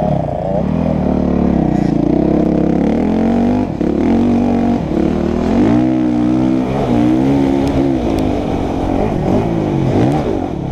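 An 85cc two-stroke motocross bike's engine revving hard under the rider. Its pitch climbs and drops again and again as the bike accelerates, shifts and backs off, with a brief drop in loudness a few seconds in.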